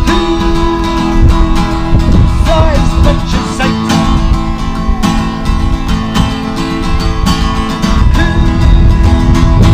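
Acoustic guitar strummed steadily, chords ringing, in an instrumental stretch of a song.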